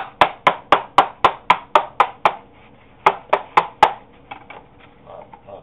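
A Hoover WindTunnel vacuum cleaner filter being knocked against a hard surface to shake the dirt out: a quick even run of sharp knocks, about four a second, then after a short pause a second, shorter run, then only faint small sounds.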